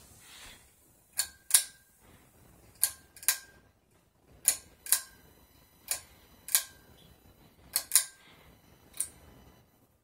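Pull-chain switches on a Heritage Empire Deluxe ceiling fan's switch housing being pulled: five sharp double clicks, each pull clicking on the way down and again on release, then a last single click.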